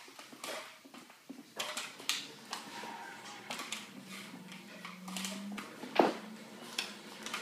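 A puppy's paws and claws skittering and scuffling on a wooden floor in short irregular taps as it pounces about. There is a louder thump about six seconds in as it flops over onto the floor.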